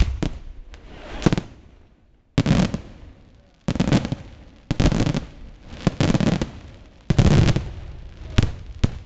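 Fireworks display: shells bursting in quick succession, sharp loud bangs with crackling tails, coming in clusters about once a second. There is a brief lull about two seconds in.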